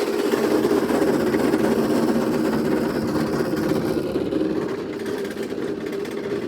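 John Deere riding lawn mower engine running steadily with its cutting blades engaged.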